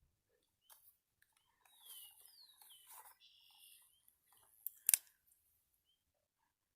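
Faint rustling and a few bird chirps, one a falling whistle, then a sharp double click about five seconds in.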